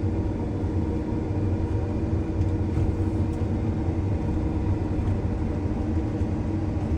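Vehicle engine running at a steady speed: a constant low hum with steady tones that do not rise or fall.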